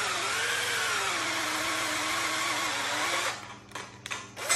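Cordless drill spinning a single-flute countersink bit into 16-gauge steel tube under steady clamp pressure, its motor pitch wavering as the load changes. It stops about three seconds in, followed by a few clicks and knocks.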